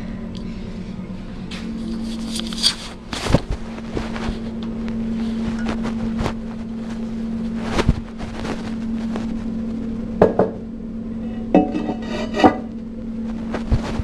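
Handling noise: scattered knocks, clinks and rubbing, with a cluster of clinks near the end, over a steady low hum.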